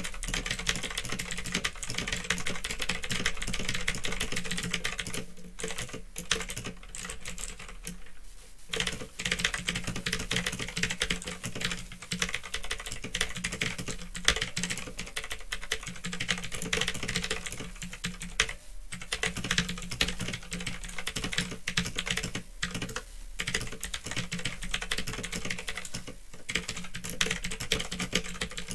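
Fast, continuous typing on a Phantom Tecware 87 mechanical keyboard with clicky Otemu blue switches, broken by a few brief pauses. A steady low hum runs underneath.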